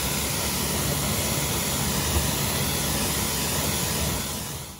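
Pressure washer running, its jet of water spraying against a truck's tire and wheel: a steady rush of spray over a low motor hum. It stops suddenly near the end.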